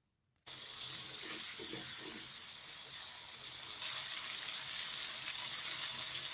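Food sizzling in hot oil in a frying pan. It starts abruptly about half a second in and gets louder just before the four-second mark.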